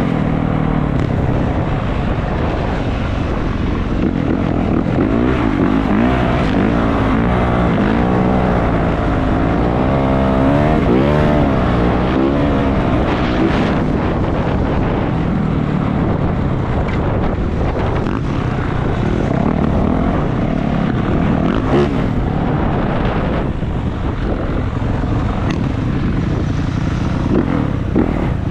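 450cc four-stroke dirt bike engine running under way, its revs rising and falling through the middle, over a steady rush of noise.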